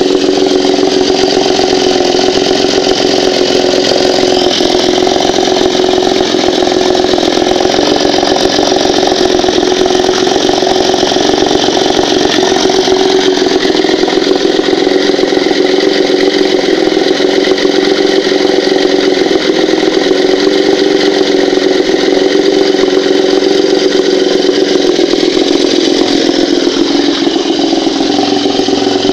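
Moskva M two-stroke outboard motor running steadily, without knocking or ringing: the flywheel no longer strikes the ignition coil core.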